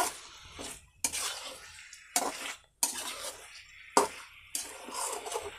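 Metal spatula stirring and scraping masala-coated chicken around a frying pan in irregular strokes, roughly one a second, over a light sizzle of frying.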